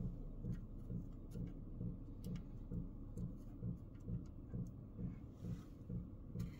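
Soldering iron working the joints on a circuit board, giving scattered small, sharp clicks. Under them runs a steady low ticking of roughly three to four beats a second.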